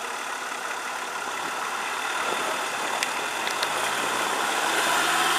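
Off-road 4x4 engine running, growing gradually louder toward the end.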